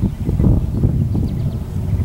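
Wind buffeting the microphone: a loud, gusting low rumble, with a few faint high chirps a little past a second in.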